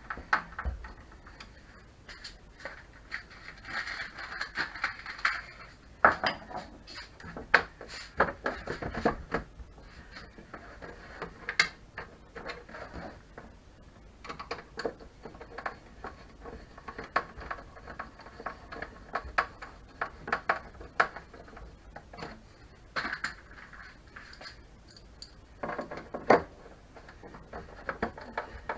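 A hand screwdriver and small metal screws clicking and clinking as the long screws are driven into the Tacx Flux trainer's plastic housing, irregular clicks with a few stretches of scratchy scraping.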